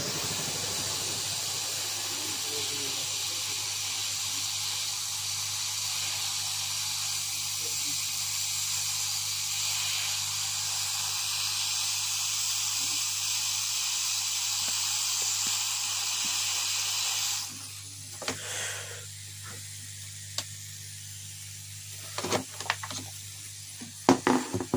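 Hot-air rework gun blowing a steady hiss of hot air onto a circuit board to melt the solder and seat a replacement IC. The hiss cuts off suddenly about three-quarters of the way through, and a few light clicks and taps follow.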